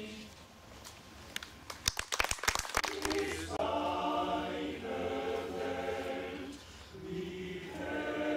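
A choir cuts off a held chord. After a short pause and a brief flurry of sharp clicks, it starts singing again, breaking off for a moment partway through and then carrying on.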